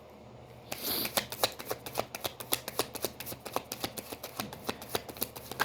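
A deck of tarot cards being shuffled by hand: a quick, even run of card flicks and clicks, several a second, starting about a second in.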